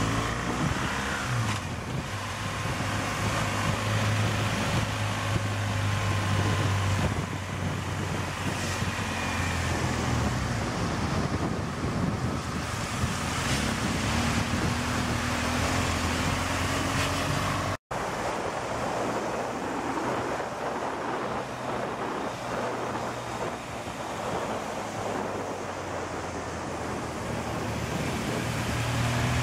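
Motorcycle engine running while riding a winding mountain road downhill, its note rising and falling, with wind noise on the microphone. The sound drops out for an instant about 18 seconds in.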